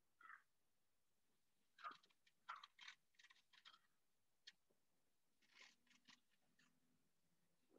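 Near silence, broken by faint scattered clicks and rustles: one just at the start, a cluster from about two to four seconds in, a lone click, and another cluster around six seconds in.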